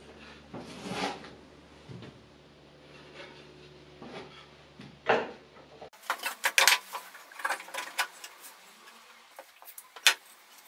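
Wooden pieces being handled and set down on a wooden workbench: light knocks and rubbing of wood on wood, a quick run of clattering knocks about six seconds in, and one sharp click near the end.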